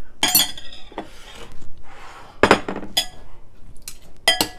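Metal utensils clinking and scraping against a glass bowl as rice noodles are tossed with sauce. Several sharp clinks with a brief ring come near the start, twice in the middle and twice near the end, with softer scraping between them.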